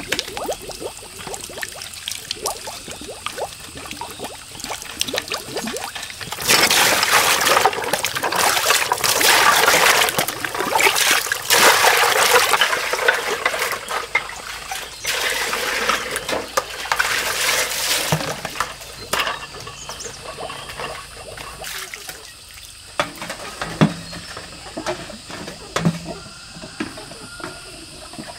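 Dishes washed by hand in plastic basins: water sloshing and trickling, with small clinks of bowls and plates. Through the middle comes a louder, longer spell of water pouring and splashing.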